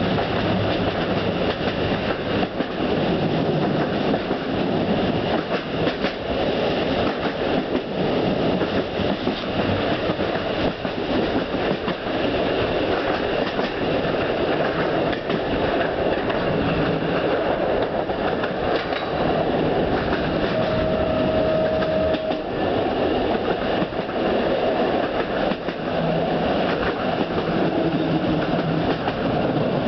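Train running along the track, heard from on board: a steady rumble of wheels on rails with the clickety-clack of rail joints. A brief high note of about two seconds sounds about two-thirds of the way through.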